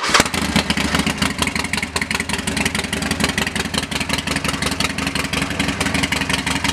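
Harley-Davidson Sportster Forty-Eight Special's 1200 cc air-cooled V-twin firing up and idling through Vance & Hines slip-on mufflers, with a loud, rapid, even exhaust pulse.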